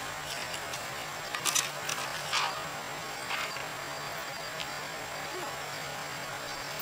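Metal swing set squeaking and clinking a few times as it swings. The loudest sounds come about one and a half and two and a half seconds in, over a steady faint hum.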